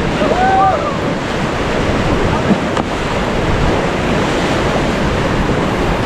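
Loud, steady rush of river whitewater around a raft, with wind buffeting the microphone. A brief voice cry is heard in the first second.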